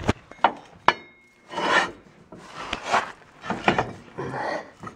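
Two sharp metallic clinks, the second ringing briefly, then four rough rasping scrapes about every 0.7 s: something being scraped and rubbed against metal.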